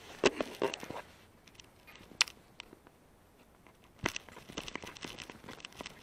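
Handling noise from a camera being picked up and pressed against clothing: scattered knocks and clicks with fabric rustling. They come in a cluster at the start, as one sharp click about two seconds in, and as a denser run of rustles and clicks from about four seconds in.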